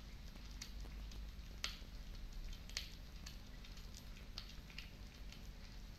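Ragdoll cat chewing a whole quail: wet, squishy chewing with a handful of sharp crunches at uneven intervals.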